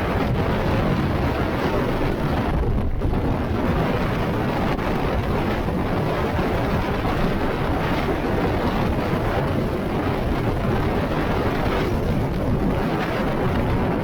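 Very strong mountain wind buffeting the microphone: a loud, unbroken rush of wind noise, heaviest in the low rumble.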